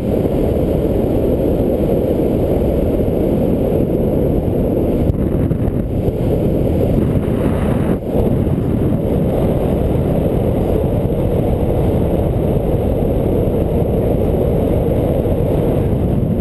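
Steady low rushing of wind buffeting the microphone of a camera on a paraglider in flight, with a brief dip about eight seconds in.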